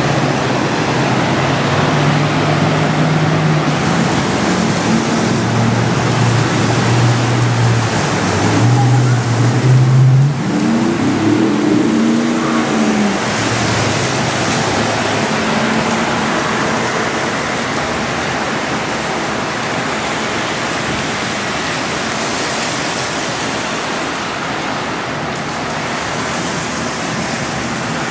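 Cars and trucks driving slowly through deep flood water on a street: engines running and tyres pushing through water over a steady rush of water noise. About eleven seconds in, an engine revs up and down briefly, and the engine sound then fades, leaving the steady water hiss.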